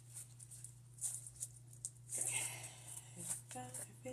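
Small handling noises: scattered light clicks and rustles as hands move small objects over a surface, over a steady low hum. A short voice-like sound comes near the end.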